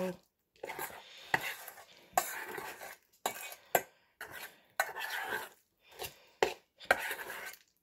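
A utensil scraping and knocking irregularly against a blender jar, working at dried smoothie caked inside it.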